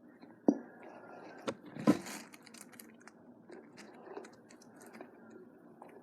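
Sticky slime being worked in a bowl with a spatula: small wet clicks and squelches, with a sharp knock about half a second in, another about a second and a half in, and a short louder rustling burst about two seconds in.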